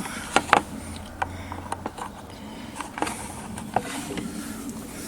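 Irregular sharp clicks and light knocks, about half a dozen, of small parts being handled while the wiring inside a Kenwood Chef stand mixer is worked on.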